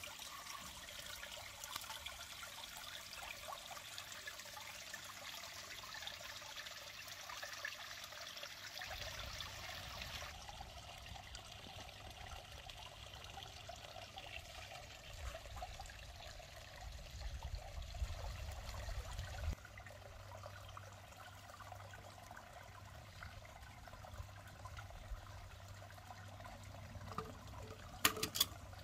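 Steady trickle of running water, with the background changing abruptly about ten and twenty seconds in. A few sharp clicks near the end.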